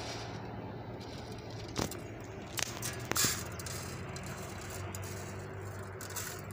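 Tin-sheet bird feeder, cut from an iron oil tin, being handled and adjusted on a tree: a few sharp metallic clicks and rattles about two to three seconds in, over a steady background hiss.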